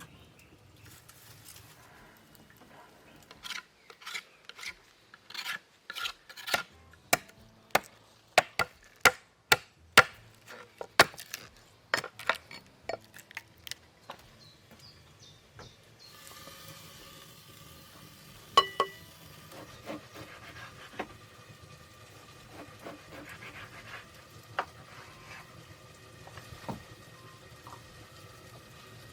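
A run of sharp knocks or clacks, about two a second, for around ten seconds. Then fainter scattered clicks, with one louder ringing knock in the middle.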